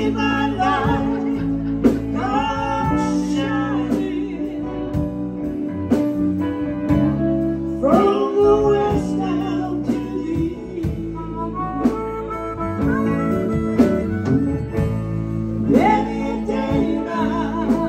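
Live band playing a song: electric guitars, bass and drums, with a voice singing over them.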